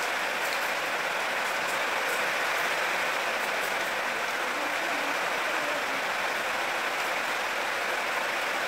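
Steady hissing noise at an even level, with a few faint clicks.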